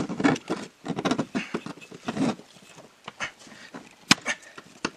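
Hands working in a car's engine bay among hoses and wiring: irregular rustling and scraping for the first two seconds or so, then scattered clicks, with one sharp click about four seconds in.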